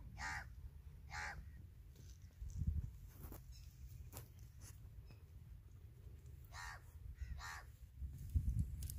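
Crows cawing: two caws in the first second or so and two more past the middle, over a steady low rumble, with a dull thump a couple of seconds in.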